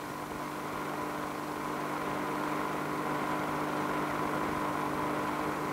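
Steady hum of a steam turbine running, a few fixed tones over a hiss, growing slightly louder.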